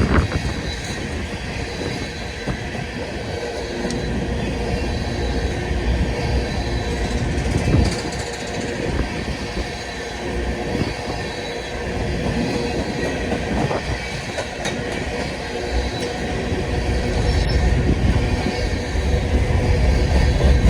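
Empty freight cars of a passing train rolling by, steel wheels rumbling and clacking over the rail joints with a faint wheel squeal.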